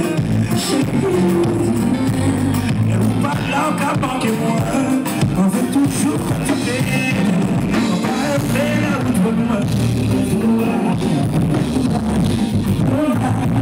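Live music with a singer, played loud through the stage's PA speakers: a sung vocal line over a steady bass-heavy accompaniment.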